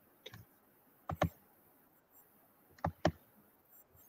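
Clicking at a computer: a faint single click, then two pairs of quick clicks, as the next presentation slide is brought up.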